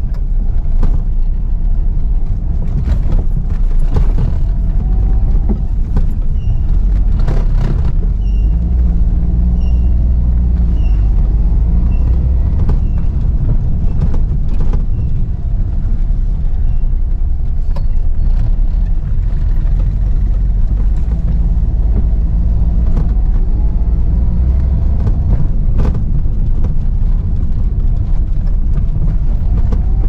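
Cabin sound of a Suzuki Mehran's small three-cylinder petrol engine driving at low speed: a steady low rumble whose engine note rises and falls, with occasional knocks and rattles. A series of short high beeps repeats about once a second for several seconds around the middle.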